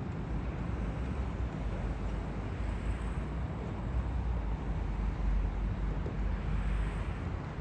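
Steady low rumble with outdoor harbour background noise, with no distinct events.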